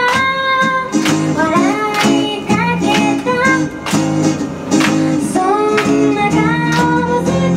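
A woman singing into a microphone while strumming her acoustic guitar in a steady rhythm, a live performance.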